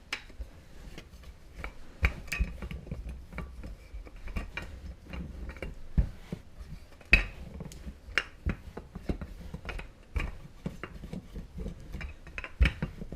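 Irregular clinks, knocks and light thuds of kitchen utensils and dishes being handled on a counter while pie dough is worked.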